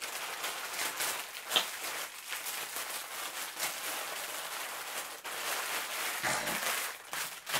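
Plastic packaging crinkling and rustling as bundles of mesh jewelry bags are handled and stacked, with a sharper crackle about a second and a half in.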